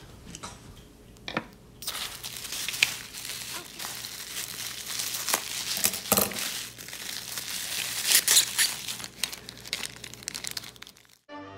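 Plastic bubble wrap crinkling and crackling as it is cut with scissors and pulled open by hand, with many sharp snaps and tearing sounds; it starts about two seconds in.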